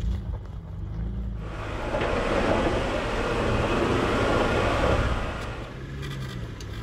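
Off-road vehicle crawling up a rocky trail: steady low engine rumble, with a broad rushing noise that swells for a few seconds in the middle and a few small clicks of rock near the end.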